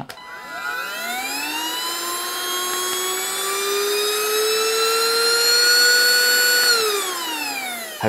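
Greenote GCH01 cordless handheld vacuum switched on with a click, its motor whining up in pitch and climbing further as the boost button raises the suction. About seven seconds in it is switched off and the whine falls away as the motor winds down.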